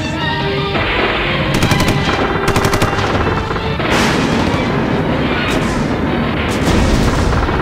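Two quick bursts of rapid machine-gun fire about a second and a half in, followed by several heavier single shots that ring out, over background music.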